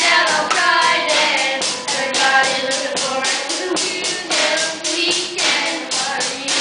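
Young voices singing a pop song through a PA system over a backing track with a steady clapping beat.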